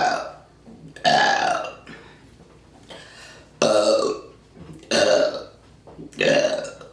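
A person burping on command, four loud pitched burps in a row, each less than a second long, with the end of another right at the start. The burps are carbonation gas brought up after chugging soda.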